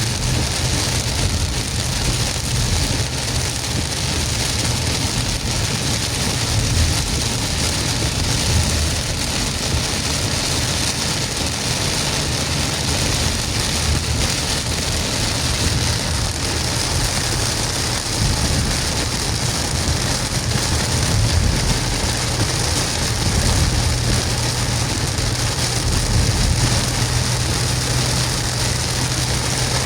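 Heavy rain hissing steadily on a moving car, over the low, even hum of the engine and wet road noise, heard from inside the car.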